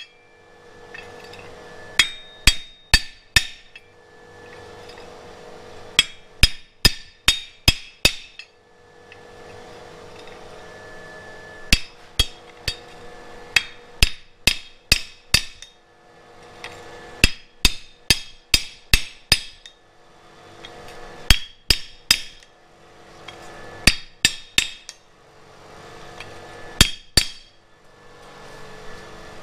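Hand hammer striking red-hot flat bar iron on an anvil in bursts of several quick blows, each with a bright metallic ring. The hot iron is being forged into shape. A low steady hum fills the pauses between the bursts.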